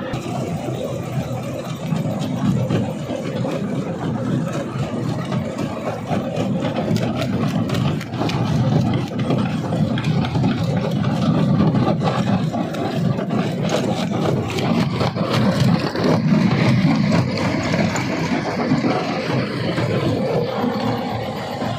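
Rock crushing machinery at work: a heavy engine running steadily under a deep grinding rumble, with many sharp knocks and cracks of rock being broken, thickest in the middle of the stretch.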